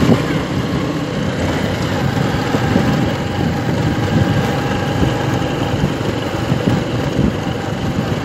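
Motor scooter riding along a road: its engine running steadily, mixed with wind and road noise.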